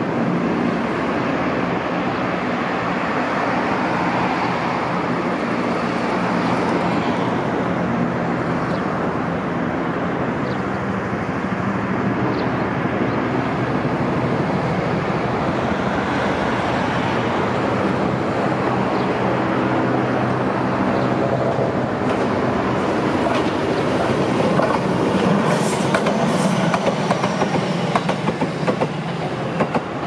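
Electric train running along the line, a steady rumble of wheels on rail with some clickety-clack, and a few short high-pitched squeaks near the end.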